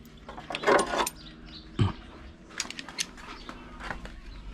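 Metal hand tools, pliers and wrenches, clinking and rattling as they are gathered up and set down, in short scattered clatters with a duller knock about two seconds in.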